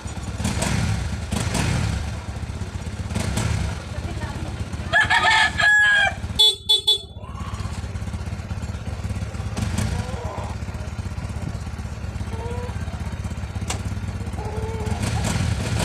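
Honda CBR sport bike's engine idling steadily while standing still. A rooster crows about five seconds in, followed by a few short, loud sounds.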